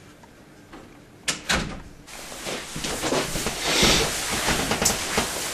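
A door latch clicks twice, then a few seconds of rustling and soft knocks, loudest near the middle, as a person gets onto a bed and settles into the bedding.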